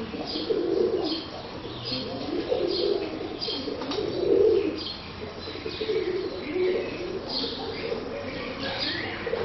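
Pigeons cooing over and over, with small birds chirping in repeated short high notes above them.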